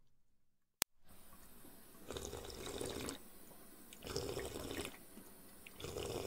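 Water sound rising in swells about a second long, roughly every two seconds, after a single sharp click about a second in.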